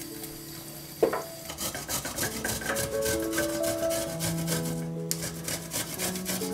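Fresh ginger root grated on a stainless steel grater: a quick run of rasping strokes, over background music. A single sharp knock about a second in is the loudest sound.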